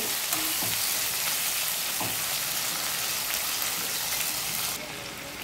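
Sliced onions, garlic and tomatoes sizzling in hot mustard oil in a wok, stirred with a metal spatula, with a faint knock of the spatula about two seconds in. The sizzle drops away suddenly near the end.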